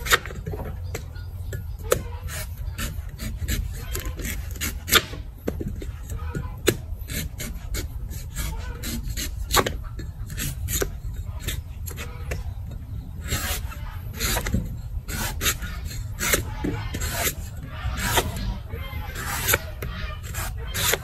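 Meat cleaver slicing and chopping the green husk off a young coconut: irregular scraping cuts and sharp knocks of the blade against a plastic cutting board, about one or two a second, over a steady low rumble.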